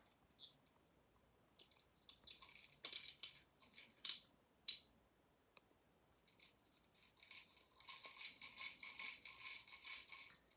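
Plastic baby rattle shaken by hand: a few short rattling shakes in the first half, then steadier, continuous shaking for the last four seconds or so.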